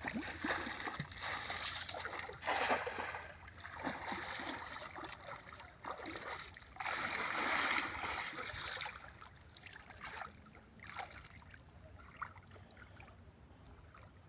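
Water splashing and sloshing in repeated bursts, loudest through the first nine seconds, then quieter with a few brief splashes.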